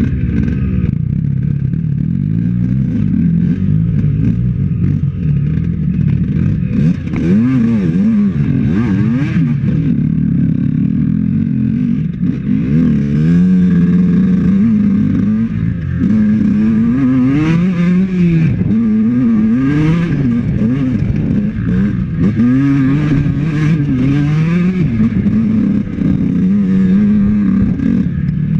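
Honda CR125 two-stroke dirt bike engine revving up and down under riding, its pitch rising and falling again every second or two.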